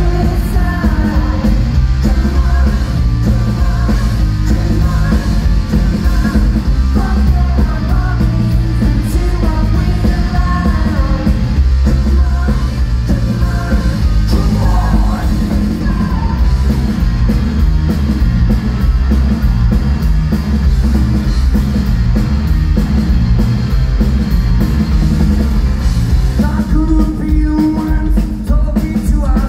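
Rock band playing live, loud: electric guitar, bass guitar and drums, with sung lead vocals over them.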